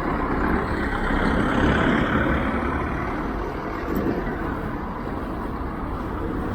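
A road vehicle going past, the rushing noise swelling about a second or two in and then slowly fading.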